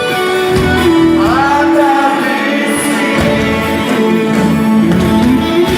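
Live rock band music with singing, long notes held and one sliding upward about a second in.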